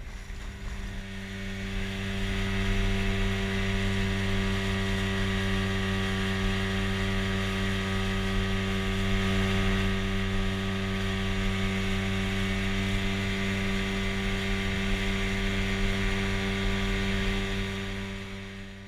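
Steady motor hum at constant pitch, fading in over the first two seconds and fading out near the end.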